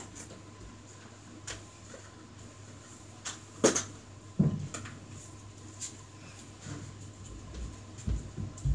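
A few sharp clacks and knocks of things being handled, the two loudest about three and a half and four and a half seconds in, then a few low thumps near the end.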